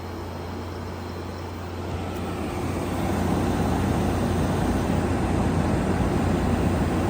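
GE 8000 BTU window air conditioner starting up: a steady low hum with a rush of air noise that swells about two to three seconds in and then holds at a steady, loud level.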